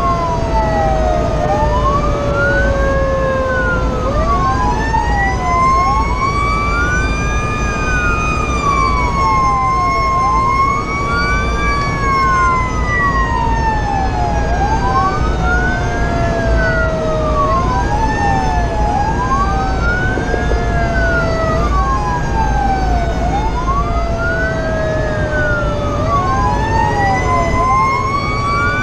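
Fire engine sirens heard from inside the cab: one siren rises and falls in a quick wail every few seconds over a second, slower wail, with the truck's engine and road noise rumbling underneath.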